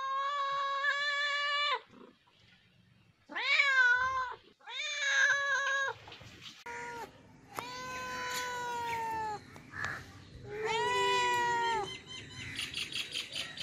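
Domestic cats meowing: a long held meow, then two short rising-and-falling meows, then two more long drawn-out meows, one falling slightly in pitch and one wavering.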